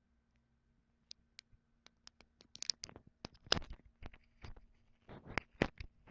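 Irregular short clicks and scratching noises, sparse at first and growing busier from about two and a half seconds in, over a faint steady hum.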